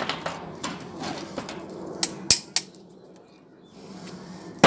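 Sharp metal clinks and knocks from scrapped microwave fan motor parts being handled and tapped. There is a quick run of them over the first two and a half seconds, the loudest about two seconds in, then a quieter spell until another knock at the very end.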